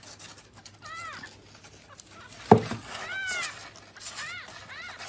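A kitten mewing: about five short, high calls that rise and fall in pitch, with a sharp knock about halfway through.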